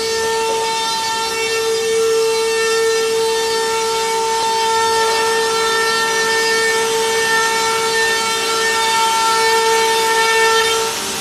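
Multi-spindle CNC router's high-speed spindle motors running with a steady high-pitched whine, with cutting noise, while slotting aluminum composite panel. The whine drops slightly in pitch and gets quieter near the end.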